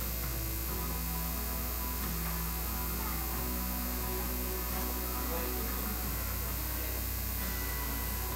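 Steady low electrical mains hum, unchanging throughout, with faint held tones underneath.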